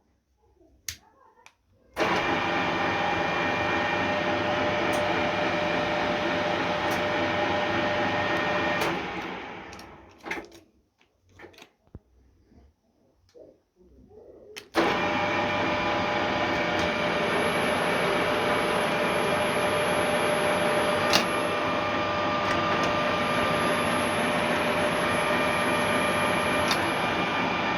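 Retrofitted Ruhla FUW 250 milling machine, its 3-phase AC motors on variable-frequency drives, starting abruptly and running steadily. About nine seconds in it stops and winds down, leaving a few clicks. Near the middle it starts again just as sharply and runs on, with a high, steady whine that comes and goes.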